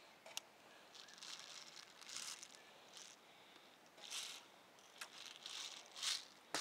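Faint rustling that comes and goes several times, with a few sharp clicks, one about half a second in and one near the end.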